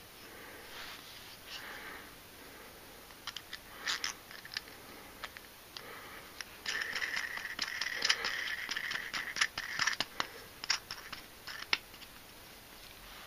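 Light handling sounds of a wooden block and a long threaded metal bolt: scattered small clicks and knocks, with a few seconds of steady scraping about halfway through as the bolt is worked through the block.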